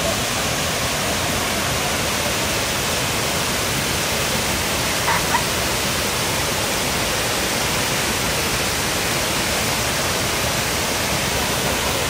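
Waterfall cascading over rock into a pool: a steady, even rush of falling water.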